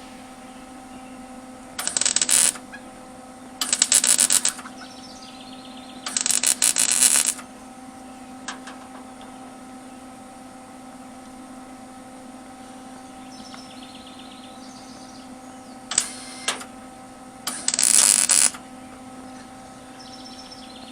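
Four short bursts of crackling welding arc, each about half a second to a second long, over a steady electrical hum, with a few sharp clicks between them: tack welds.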